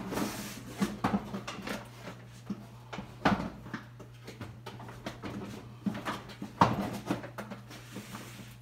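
Irregular knocks and clatter of tools and equipment being handled and set down on a workbench, with several sharper knocks among them. A steady low hum runs underneath.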